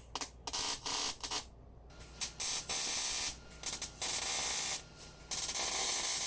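MIG welder arc laying a series of short spot welds on steel: start-stop hissing bursts, the first few brief and the later ones running about a second each.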